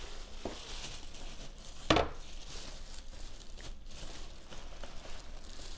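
Hands handling packaging inside a cardboard box: quiet rustling and scraping, with a sharp knock about two seconds in and a lighter tap near the start.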